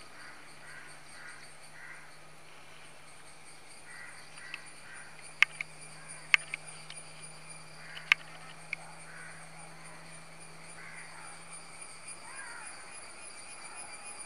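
Crows cawing repeatedly, with a few sharp clicks in the middle and a faint steady high-pitched drone throughout.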